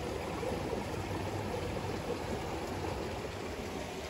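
Steady rushing of a nearby mountain stream.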